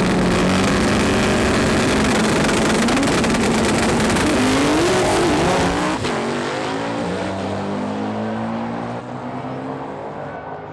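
Drag-race cars at full throttle off the line and down the strip, the engines' pitch rising and shifting as they accelerate. Very loud for the first several seconds, then a drop about six seconds in and a steady fade as the cars pull away.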